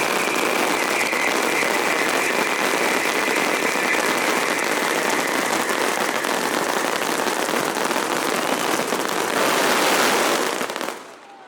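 Fireworks going off in a dense, continuous crackle, with a high whistle running over the first half. The crackle stops suddenly near the end.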